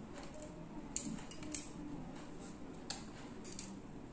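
Faint handling noise with a few light clicks from picking up and handling a small plastic handheld remote controller.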